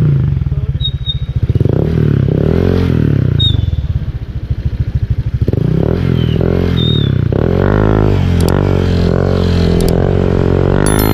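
Honda Click 125 scooter's single-cylinder engine through a rebuilt Apido V4 aftermarket exhaust with a 2-inch straight screen, revved in repeated blips that rise and fall. It drops back lower about four seconds in, then is held at higher revs with a further rise near the end.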